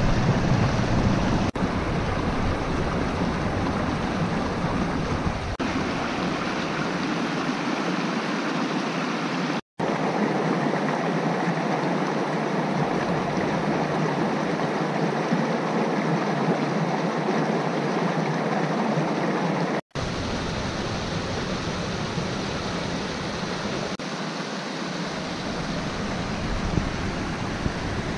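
Small waterfall and rapids rushing steadily, cutting out briefly twice.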